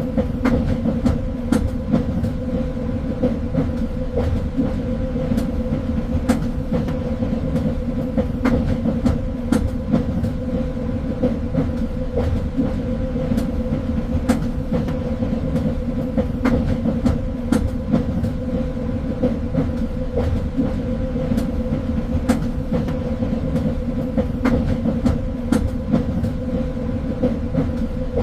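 Train running along the track: a steady low rumble with a constant hum, broken by irregular sharp clicks and knocks from the wheels on the rails.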